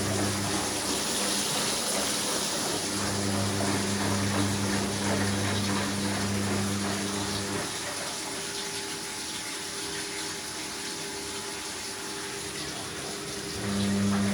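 Water rushing through a Gorenje PS 060 A washing machine, with a low electric hum that cuts in and out: on for a few seconds in the first half, then off, then back on near the end. The water noise eases about halfway through.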